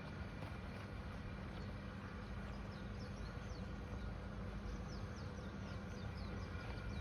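Steady rushing of a river, with a run of faint, short, high chirps in the middle seconds.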